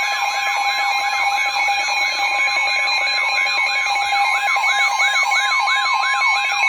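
Weather radio alert for a severe thunderstorm warning: steady high warning tones under a warbling alarm whose pitch drops and repeats about three times a second, signalling that a warning message is about to be read.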